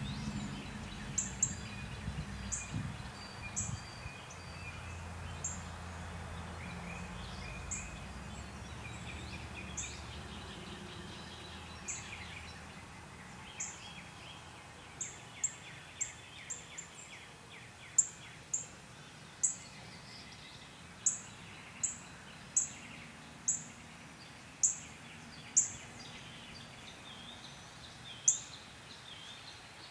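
Backyard ambience: a bird repeating short, sharp, high chip notes, scattered at first and then coming every half-second or so and louder in the second half, over fainter birdsong. A low hum fades out about ten seconds in.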